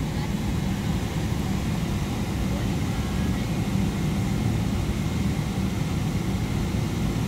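Jet airliner cabin noise as the plane rolls along the runway: a steady, deep rumble of the engines and wheels.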